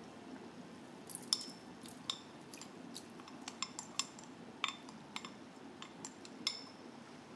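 Light, irregular clicks and clinks of a kitchen utensil against a pot and dish as Spam is added to the rice pot, about a dozen small taps starting about a second in.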